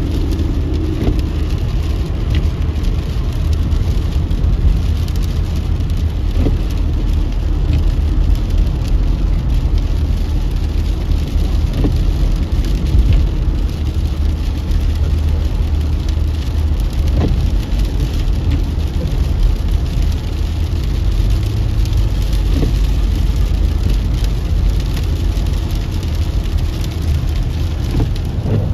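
Steady low rumble of a car driving on a wet freeway, heard from inside the cabin, with freezing rain pattering on the windshield and a few faint ticks of drops.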